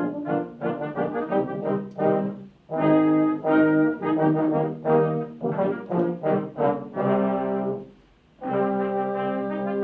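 A brass sextet, trumpets and baritone among them, playing in short, separated notes. The band drops out briefly near the end, then comes back in on a long held chord.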